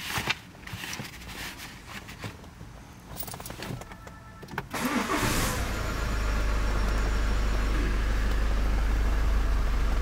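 Ford Kuga engine cranked and started about five seconds in, catching at once and settling into a steady idle. Before that there are only a few light clicks and taps.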